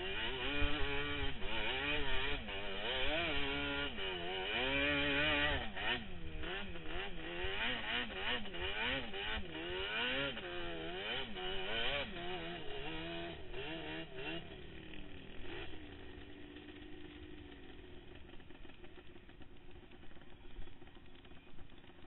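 Sport quad's engine revving up and down over and over as the throttle is worked across the dunes, then easing off to a quieter, steadier run for the last third.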